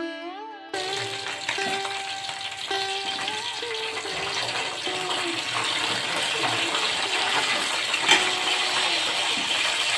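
Chicken pieces sizzling in hot frying oil, with scattered crackles and a sharp click about eight seconds in. Background instrumental music plays over it.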